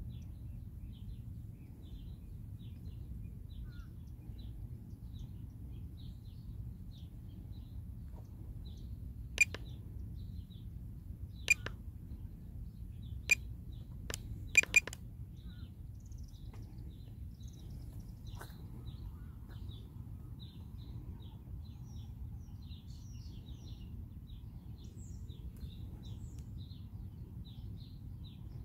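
Small birds chirping continually over a low steady rumble, with five sharp clicks about a third to halfway through, the last two close together; the clicks are the loudest sounds.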